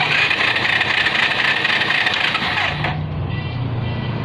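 Bajaj Pulsar 220's electric starter cranking the engine for about three seconds without it catching, then stopping abruptly. The engine does not fire because it has no ignition spark, which the owner puts down to a faulty CDI.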